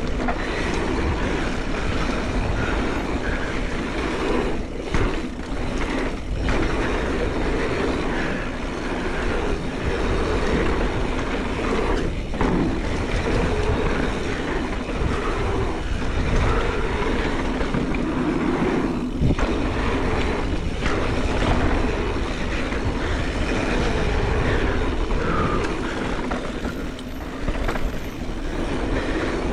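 Mountain bike descending a dirt trail: a continuous rattle and rumble of tyres over the ground and the bike clattering, with a few brief dips along the way.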